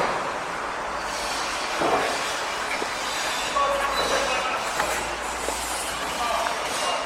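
Construction-site noise: a steady mechanical din with short metallic squeals and a brief knock about two seconds in.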